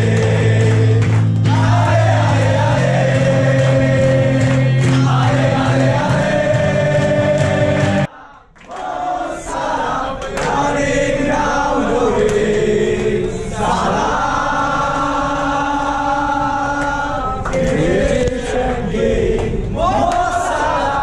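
A roomful of football supporters singing chants loudly together in unison. The singing cuts off abruptly about eight seconds in, and a new chant starts up.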